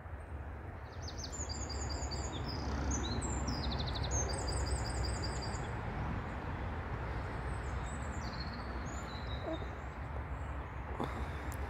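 A songbird singing quick, high, repeated phrases for the first few seconds, with fainter high notes later, over a steady low rumble.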